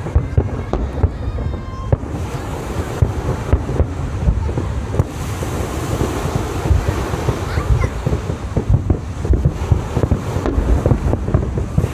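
Fireworks finale barrage: aerial shells bursting in a dense, overlapping stream of booms and crackles, many bangs a second over a continuous rumble.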